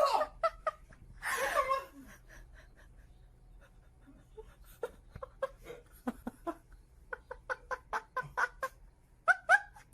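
Fowl clucking: a run of short calls, several a second, through the second half, ending with two louder calls.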